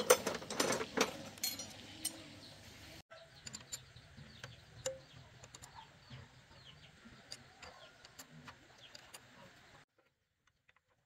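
Metal hand tools clattering and clinking in a toolbox for the first second or two. After that, birds chirp faintly with a few small metallic clicks of a spanner on the engine, and the sound drops to near silence near the end.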